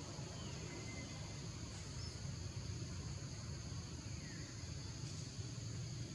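Tropical forest ambience: a steady high-pitched drone of insects over a low rumble, with a few faint, short bird chirps scattered through.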